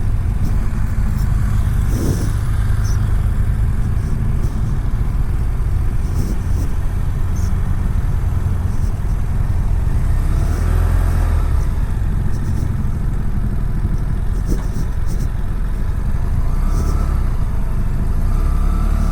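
BMW F700GS motorcycle's parallel-twin engine running on the move, heard as a steady low rumble through the helmet-mounted camera.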